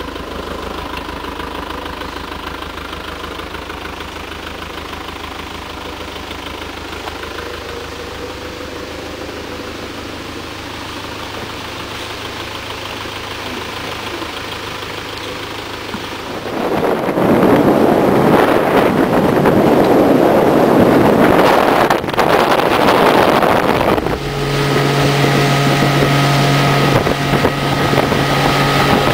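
Engine idling steadily, then several seconds of much louder rushing noise, and from about two-thirds of the way in a small motorboat's engine running at a steady pitch as the boat moves across the river.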